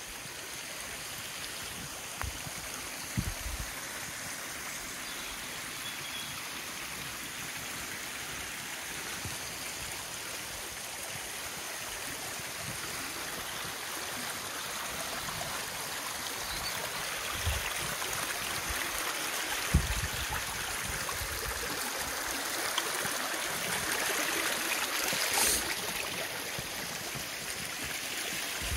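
Small mountain stream running over rocks, a steady rushing noise that grows gradually louder toward the end, with a few short low thumps.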